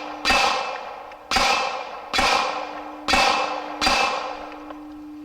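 Pistol shots fired one at a time at a steady pace, five in a row about a second apart, each with a short echoing tail. A low steady ring hangs on after the last shot.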